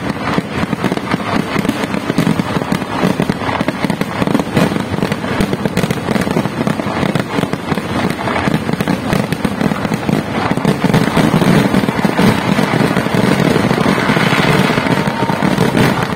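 Fireworks display: a continuous, dense barrage of bangs and crackling as aerial shells and firecrackers burst in rapid succession.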